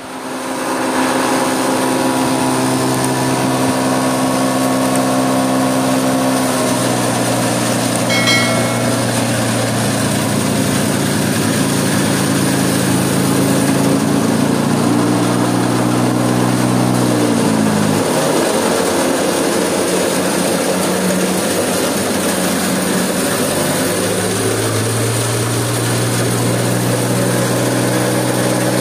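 Small hammer-mill stone crusher driven by a three-phase electric motor, running with a loud, steady hum from its motor and hammer rotor. The sound swells within the first second, and its pitch shifts several times, sagging around the middle and recovering, with a brief click about eight seconds in.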